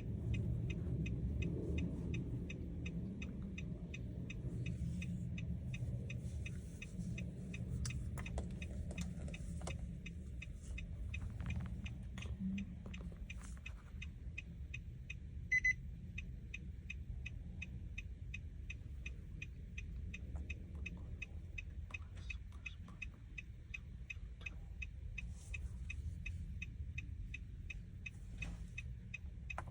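Steady, even ticking, about two ticks a second, over a low steady hum, with one short beep about halfway through.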